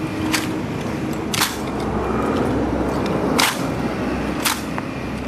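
Sharp clacks of honor guards' boots striking stone paving in a slow march, about one a second and unevenly spaced.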